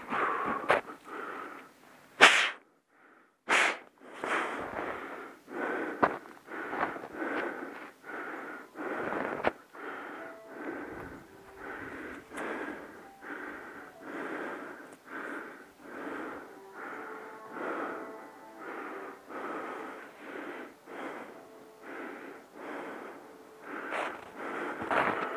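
A hiker breathing hard and rhythmically while climbing a steep snowy slope, each breath a noisy rush close to the microphone, about one every 0.7 s. There is a short break a few seconds in.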